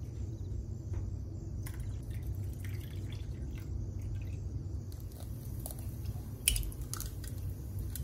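Freshly squeezed orange juice being poured from a glass bowl into a metal measuring cup, with light clicks and drips and one sharper knock of glass or metal about two-thirds of the way through, over a steady low hum.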